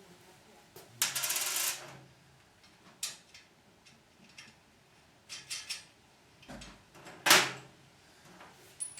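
Bolt and washers being handled and fitted on the metal mill frame. A short rattle about a second in, then scattered clicks and clinks, the loudest a sharp knock about seven seconds in.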